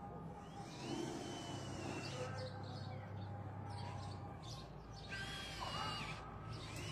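Outdoor background with a low steady hum and a few short, high, arching chirps, one about a second in and two more near the end.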